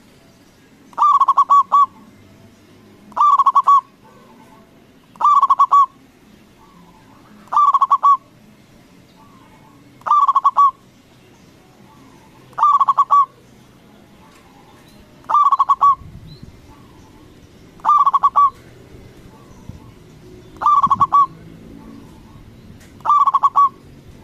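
Zebra dove (perkutut) singing its loud cooing song: ten phrases, one about every two and a half seconds, each a quick stuttering run of notes, with soft short coos in between.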